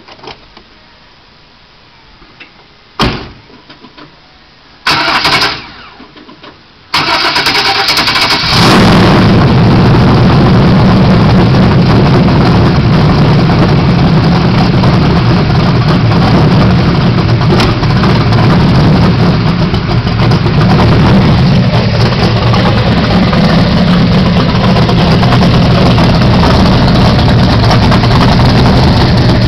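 355 cubic-inch small-block Chevy V8 with a 650 Proform double-pumper carburettor, breathing through 3-inch pipes into race bullet mufflers: after two short bursts it fires about seven seconds in and settles into a loud, rough idle. The roughness comes from a carb that still needs final adjustment.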